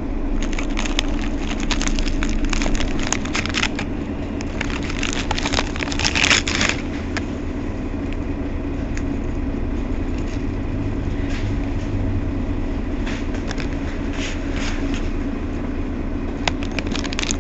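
Mercedes-Benz Citaro Facelift city bus running with a steady low engine drone, with spells of crackling rattles in the first seven seconds and again from about eleven seconds in.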